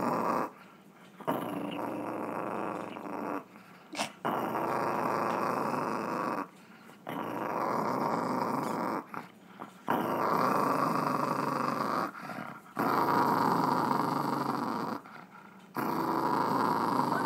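A Chihuahua growling in long, drawn-out stretches of about two seconds each, about six of them, broken by brief pauses.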